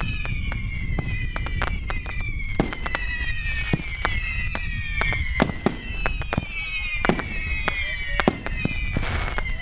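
Fireworks going off in quick, irregular succession: sharp bangs and cracks over a low rumble. A high whistle falls in pitch over about a second, again and again.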